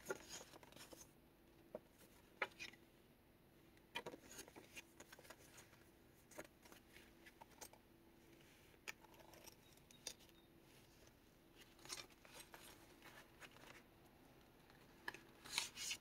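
Quiet paper handling: scattered short rustles, taps and small clicks as paper cards and pages of a handmade junk journal are lifted and turned, with a brief flurry of louder rustling near the end.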